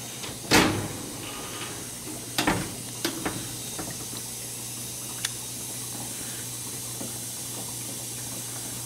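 Oven door pulled open with a loud clunk about half a second in, followed by a few lighter knocks and clicks of metal, over a steady hiss.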